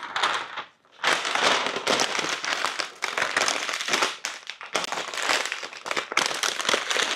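Thin plastic colour gel sheet crinkling and crackling as it is folded over a flash head and strapped on with a hair tie, with a short pause about a second in.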